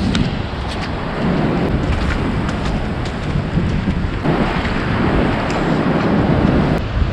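Wind buffeting the microphone in a steady, rumbling rush, with footsteps splashing through shallow water on wet beach sand; the rush grows louder for a few seconds past the middle.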